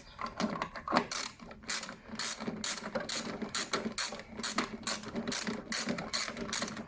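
Ratchet wrench with a 13 mm socket unscrewing the bolt that holds a lawnmower's self-propelled wheel, its pawl clicking in repeated strokes of about two to three a second.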